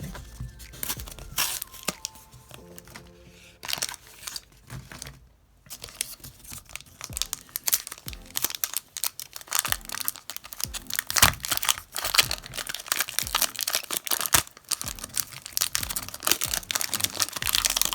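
Foil wrapper of a Pokémon trading-card booster pack being torn open and crinkled: a run of crackling rustles, sparse at first and much busier after about six seconds.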